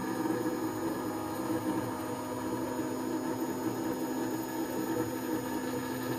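A 2.2 kW CNC router spindle running, with its end mill milling a circular hole in a thick plastic box: a steady whine with a rough, uneven cutting noise over it.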